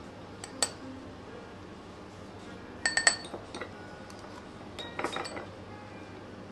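Metal spoon clinking against a small glass dessert bowl: one clink about half a second in, a quick run of clinks around three seconds in, and another short run around five seconds in.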